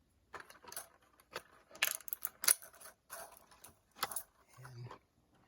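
Irregular clicks and taps of a hard plastic action figure and its accessories being handled, with a few sharper clicks around two seconds in and again near four seconds.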